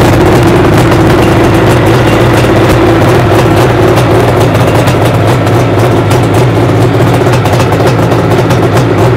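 Freshly rebuilt 1976 Suzuki GT750A's liquid-cooled two-stroke three-cylinder engine idling steadily through aftermarket Higgspeed exhausts.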